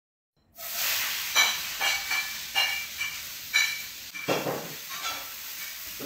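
Stainless-steel dog bowl clinking and ringing briefly, again and again, as an English springer spaniel carries it in its mouth across a tiled floor, over a steady hiss. The sound starts about half a second in.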